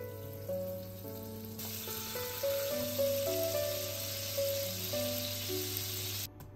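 Butter sizzling as it melts and foams in a nonstick frying pan, starting about one and a half seconds in and cutting off near the end.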